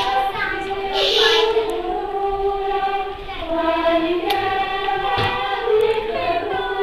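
A group of children singing a slow song together, in long held notes.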